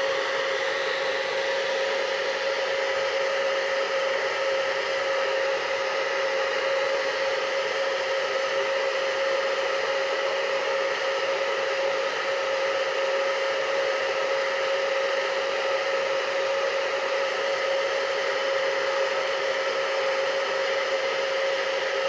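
UNIKARA ionic hair dryer with a diffuser attachment fitted, running steadily: an even rush of blown air over a constant mid-pitched motor whine.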